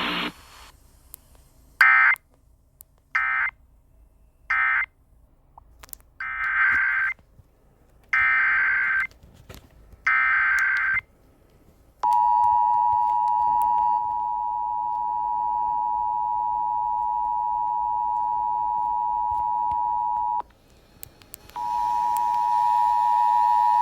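Emergency Alert System digital data bursts: three short squawking bursts, typical of an end-of-message code, then three longer bursts of the header for the next alert. These are followed by the steady two-tone EAS attention signal, which cuts off for about a second before resuming.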